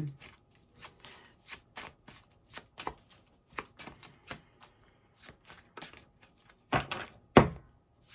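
A deck of tarot cards being shuffled by hand: a run of light card slaps and flicks, about two or three a second, with two louder thumps near the end.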